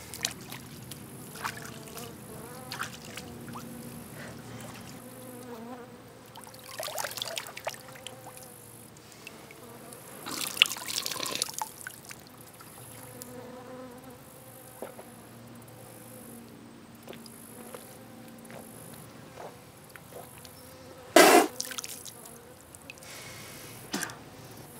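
Flies buzzing over trickling creek water, with water splashing and a few short, sharper noises, the loudest one near the end.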